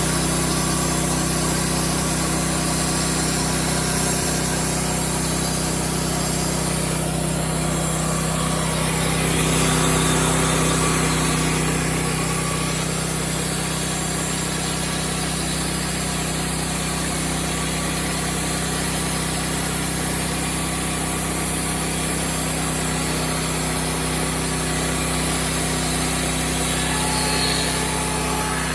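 LX50 Super portable band sawmill running at steady speed, its band blade cutting lengthwise through a red oak slab; the engine hum and blade noise swell slightly about ten seconds in.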